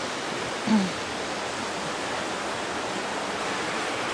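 River water rushing past in a steady, even roar. A brief voice sound with a falling pitch cuts in under a second in.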